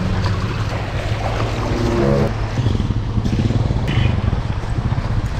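Steady low rumble of a vehicle driving over rough ground.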